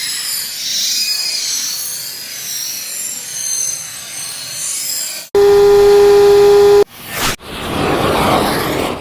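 A rapid string of cartoon sound effects sped up ten times. First comes a hiss with wavering high whistles, then a loud steady buzzer-like tone for about a second and a half that cuts off abruptly, then short bursts of noise and a swelling rush.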